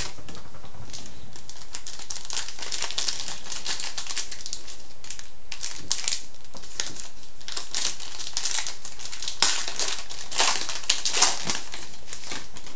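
Crinkling and rustling of a trading-card pack wrapper being handled and opened, with a run of short crackles that grow louder between about nine and eleven and a half seconds in.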